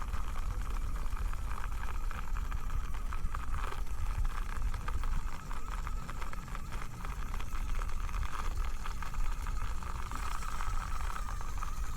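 Micro RC rock crawler's small electric motor and gears whining steadily as it climbs over rocks under load, with wind rumbling on the microphone.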